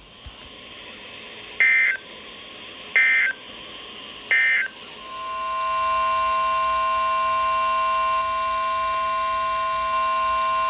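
Emergency Alert System tones: three short identical bursts of warbling SAME digital data about a second and a half apart, the end-of-message code that closes a broadcast alert. About five seconds in, a steady electronic alert tone swells in and holds, the attention signal that opens the next alert.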